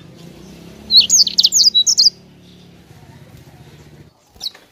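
A sanger (white-rumped seedeater) singing a fast, loud burst of about a dozen quick, sweeping high notes lasting about a second, followed near the end by one short call note.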